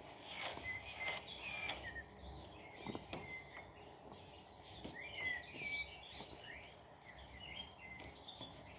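Small birds chirping and twittering, many short high calls throughout, with a few faint clicks and knocks.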